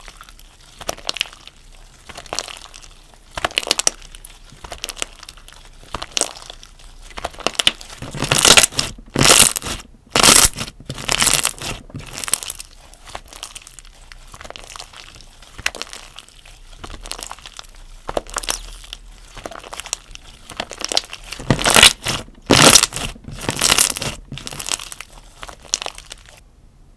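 Slime being pressed and stretched by hand, making a run of irregular crackles and squelchy pops. The sound is loudest about a third of the way in and again near the end, and stops shortly before the end.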